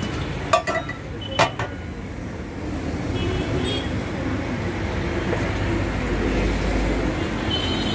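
Road traffic running past on a busy road: a steady rumble of motor vehicles, with two sharp knocks about half a second and a second and a half in, and a heavier vehicle rumbling by near the end.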